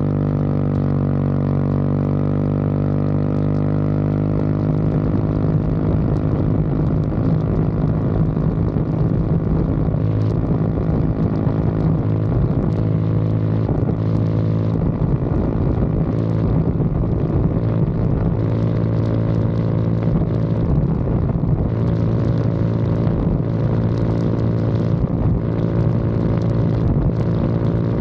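Motor scooter's engine heard close up through its aftermarket exhaust. It drones steadily at cruising speed, its pitch rising at the start as it finishes accelerating, then holding level.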